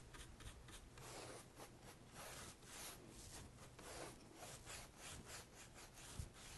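Chip brush stroking dark glaze across a painted portrait board: a faint, quick run of back-and-forth brushing strokes, several a second, with a soft knock near the end.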